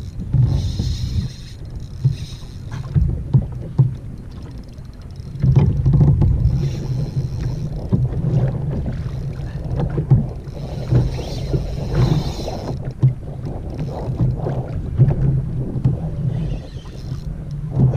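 Wind buffeting the microphone while water laps against a fishing kayak's hull, with a few short knocks now and then.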